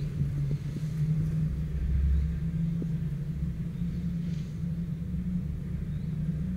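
Cable car cabin running up its ropes just after leaving the valley station: a steady low hum with a deeper rumble underneath.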